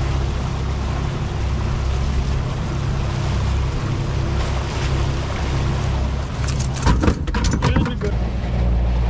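Suzuki 300 outboard motor running steadily with the boat underway, its low hum mixed with water rushing in the wake. About six seconds in, a short cluster of knocks and scuffs as a jacket rubs against the camera.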